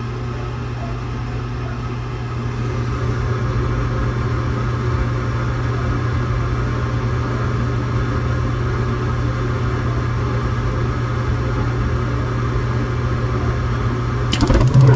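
Rheem gas furnace running with its burners lit: a steady low hum that gets a little louder about two seconds in. Near the end a louder low hum with rapid clicking sets in.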